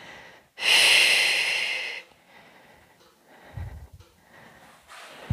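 A woman breathing out hard through her mouth, one long breath of about a second and a half that fades away, as she holds a strenuous core and hip-flexor exercise. Two short low thumps follow later.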